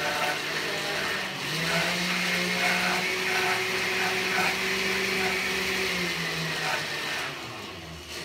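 Electric mixer motor running, blending powdered dye and an algae-based thickener into water. The motor hum steps up in pitch about a second and a half in, holds steady, then winds down and stops near the end.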